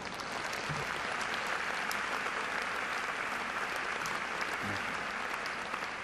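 Audience applauding, swelling at first and tapering off near the end.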